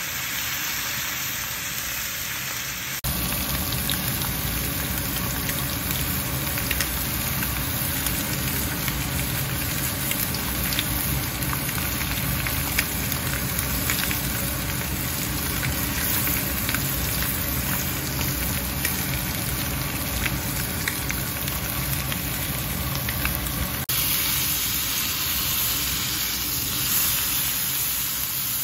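Beef steaks sizzling as they sear in a hot cast iron grill pan, a steady hiss with small crackling pops, over a low steady rumble.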